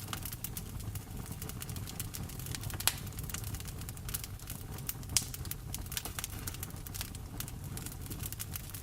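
Wood fire crackling in a fireplace, with a steady run of small pops and two louder snaps, one about three seconds in and one about five seconds in, over a steady low rumble of rain.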